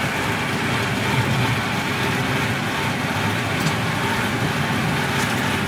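Steady running noise of a slow amusement-park train ride, heard from aboard one of its open-sided passenger cars.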